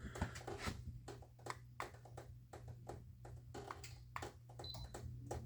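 Faint steady low hum with many light, irregular clicks and taps over it.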